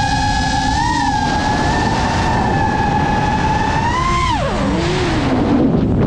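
FPV drone's motors and propellers whining at a steady high pitch. About four seconds in the pitch falls sharply and stays low, as when the throttle is cut for a dive.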